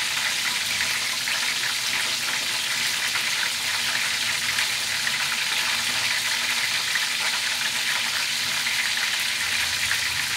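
Chicken drumsticks sizzling steadily in shallow hot oil in a frying pan, with fine crackles throughout, while a spatula turns them in the pan.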